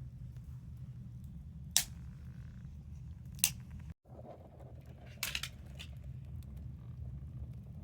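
Wood campfire crackling, with a few sharp separate pops over a steady low hum.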